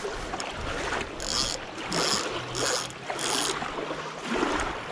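Three short splashes of water, about a second apart, as a hooked crucian carp is pulled in through the shallows on a bottom line.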